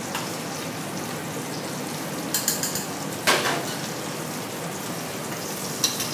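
Steady sizzle of food frying in a pan, with sharp clinks of utensils against plates and pans: a quick cluster about two and a half seconds in, the loudest just after three seconds, and one more near the end.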